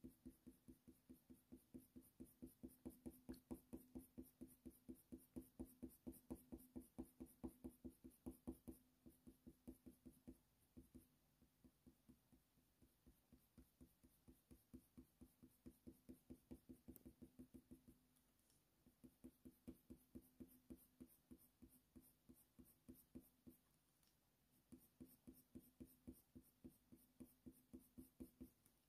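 Faint, quick strokes of a Faber-Castell Polychromos colour pencil on hot-press watercolour paper, about three or four strokes a second. They thin to near silence for several seconds midway, then resume.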